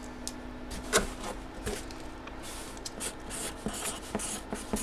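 Rubbing and scraping of a box being handled by hand, with a sharp click about a second in and denser rustling toward the end.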